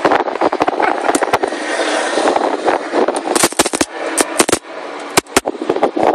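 Copper wire strands shorted across a 24 V truck battery arcing: a rapid, irregular crackle of sharp snaps and pops over a continuous hiss, with a brief lull a little past five seconds in.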